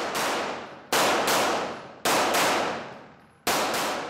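Semi-automatic pistol fired in quick pairs of shots, about seven in all. Each pair rings out in a long echoing decay off the range walls.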